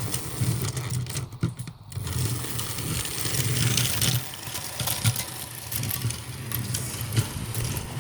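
Battery-operated toy train locomotive running on plastic track: the small electric motor hums and the wheels and gears rattle, the hum swelling and fading unevenly with scattered clicks.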